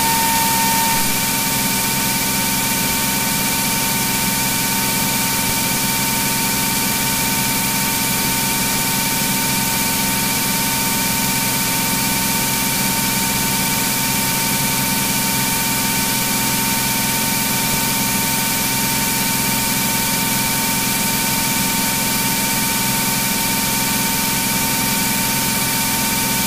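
Cirrus SR22's six-cylinder piston engine and propeller droning steadily in climb, heard inside the cabin.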